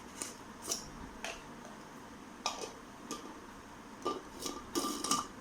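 Mixer grinder jars, storage containers and lids being handled and set down, giving irregular clicks and knocks, busiest near the end.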